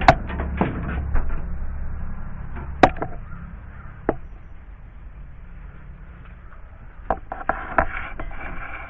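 Handling noise with several sharp clicks and snaps, spread out over the span, as electrical cable is cut and worked with tools; a low rumble underneath fades after about three seconds.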